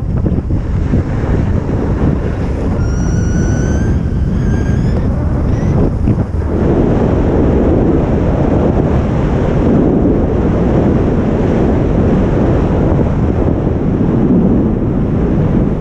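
Wind rushing over a GoPro action camera's microphone as the skier carrying it runs down a groomed slope, a loud steady buffeting with the skis sliding over the snow underneath. About three to five seconds in, two or three brief high whistling tones sound over it.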